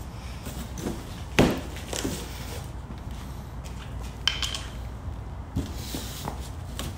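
Large cardboard shipping box being handled and pulled open: scattered knocks and scrapes of cardboard, the loudest a sharp knock about one and a half seconds in.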